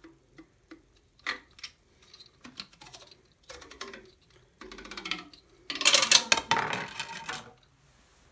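A crimper's rollers clicking and grinding against a CD fed halfway in. Scattered ticks come first, then a denser, louder run of clicks about six seconds in.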